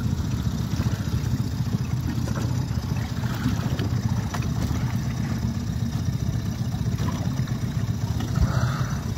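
Steady low engine rumble, like an idling motor, held at an even level throughout.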